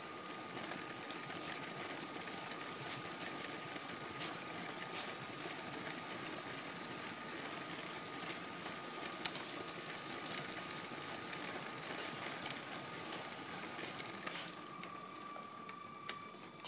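Lego City toy train's small electric motor running steadily with a whirring and a thin high whine, heard up close from on board, with occasional light clicks as the wheels pass plastic track joints.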